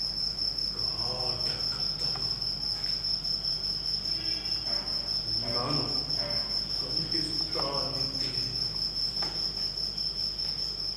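A cricket chirping in a steady, unbroken high trill.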